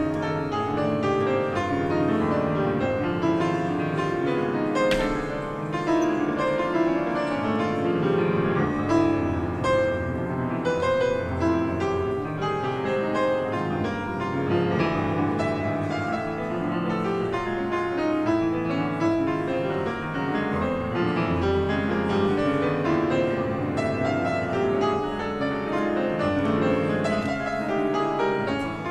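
A string orchestra with piano playing a Baroque largo live: violins and violas with the piano, in a continuous stream of notes at an even level.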